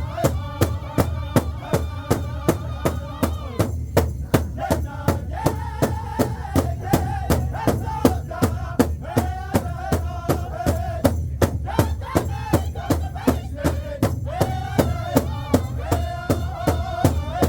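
Powwow drum group singing in high voices over a big drum struck at a steady beat of about three strokes a second. The singing breaks off briefly a few times while the drumbeat carries on.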